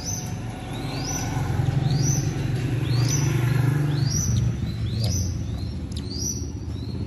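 Downy bird-of-prey nestling calling over and over, thin high squeals that slide downward, about every half second, over a low steady rumble.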